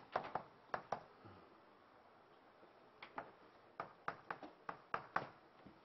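Chalk tapping and scratching on a blackboard as formulas are written: faint, short, irregular clicks in small clusters, with a pause of about a second and a half partway through.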